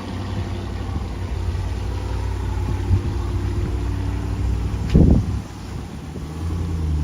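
Truck engine running steadily at low speed. About five seconds in comes one short, loud burst of sound.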